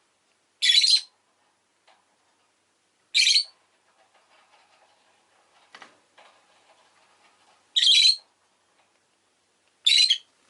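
Rosy-faced lovebird (Agapornis roseicollis) giving four short, high-pitched calls a few seconds apart. Faint street noise can be heard between the calls.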